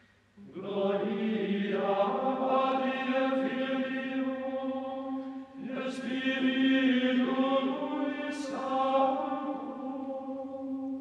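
Background music of slow, sustained choral chant, with voices holding long notes. It begins about half a second in and briefly dips around the middle.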